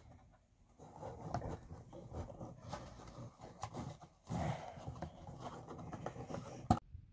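Soft, irregular taps and scrapes of a felt-tip pen and a small cardboard gift box being handled on a tabletop, with a sharper click near the end.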